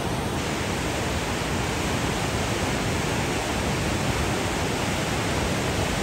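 A fast, silt-laden mountain river in spate rushing past, a steady, unbroken noise of churning water.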